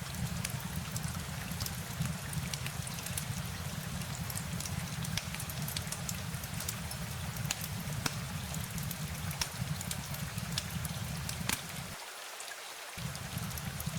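Steady rain falling, with many individual drops ticking sharply over an even hiss. A low rumble runs beneath it and drops out for about a second near the end.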